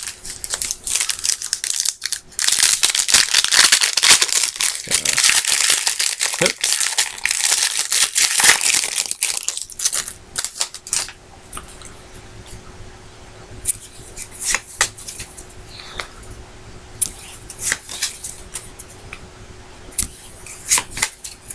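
A trading-card pack wrapper crinkling and tearing open for several seconds, then scattered light clicks and flicks of cards being handled.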